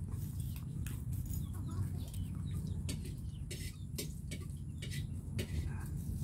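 Chickens clucking intermittently, with scattered short clicks, over a steady low rumble.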